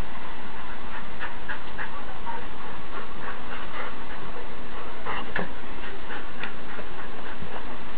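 Siberian huskies crowding close with short clicks and scuffs and a few brief vocal noises, over a steady hiss.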